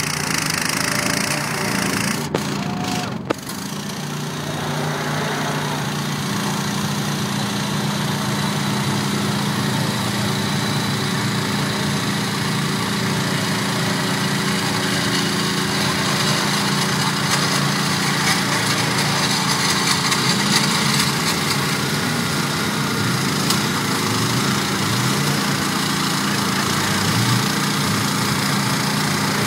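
Engine of a lifted Bolens garden tractor running steadily under load as it drives through a pond on paddle tires, with water churning and splashing at the wheels. The engine's pitch wavers up and down in the second half.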